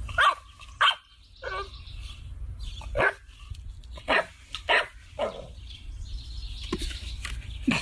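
An English bulldog puppy barking: about nine short barks at irregular intervals.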